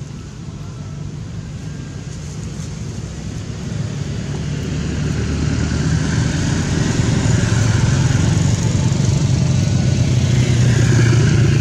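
A motor vehicle engine running and growing louder over the second half, as if approaching.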